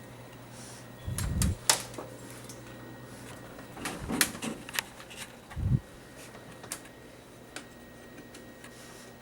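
Scattered sharp clicks and knocks, like cupboard or door parts being handled, with three short low-pitched sounds about one, four and nearly six seconds in, as a young raccoon moves about a kitchen.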